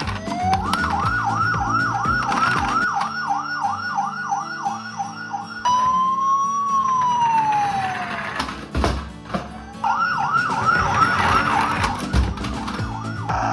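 Electronic siren sounds from toy ambulance minicars. A fast yelping siren cycles about three times a second for about five seconds, then a slow wail rises and falls once. After a click about nine seconds in, the fast yelp starts again.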